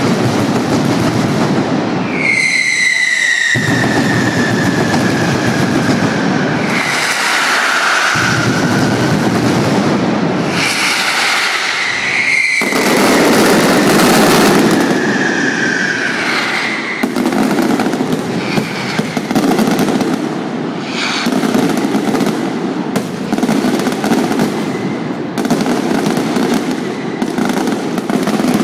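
Mascletà fireworks by Pirotecnia Carlos Caballer: a dense, continuous barrage of firecrackers going off in rapid succession. Several whistling fireworks glide down in pitch over the crackle.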